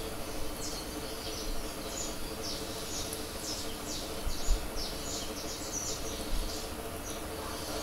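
Stylus scratching across a tablet screen as words are handwritten: a run of short, irregular scratchy strokes over a faint steady hum.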